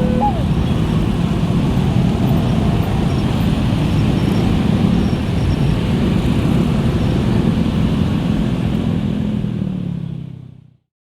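A railway level-crossing siren's alternating two-tone warning stops just after the start. Loud, steady vehicle and road-traffic noise follows and fades out near the end.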